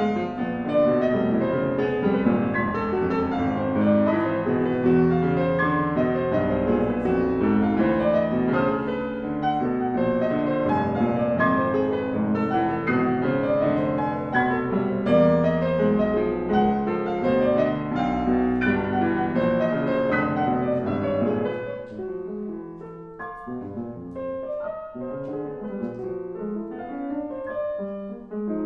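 Piano playing live, busy and full for most of the stretch, then dropping to a quieter, sparser passage about three-quarters of the way through.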